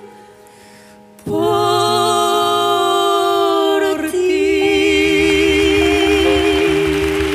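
After a brief hush, a woman and a man come in together at about a second in and hold the final notes of a ballad in harmony. The notes are long and sustained, with a wide vibrato on the last one. Piano and cajón play underneath.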